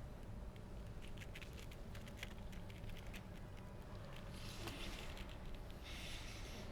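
Faint ambience with a steady low rumble, scattered light clicks and taps through the first half, then two soft rustling hisses near the end.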